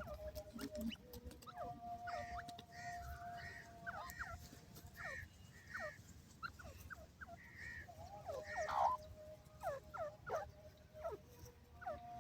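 Birds calling with many short, squeaky chirps, including a run of similar arched notes repeated about twice a second, over a faint steady tone that comes and goes.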